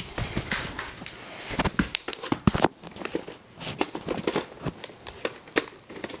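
Plastic VHS clamshell cases being handled and pulled from a stack: irregular clicks, knocks and rustling.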